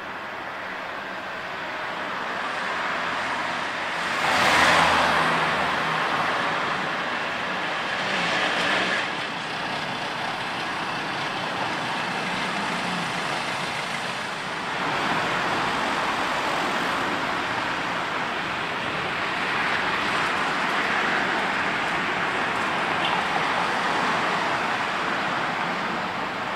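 Street traffic noise, a steady hiss of passing vehicles that swells as one goes by close about four seconds in, with more passing later.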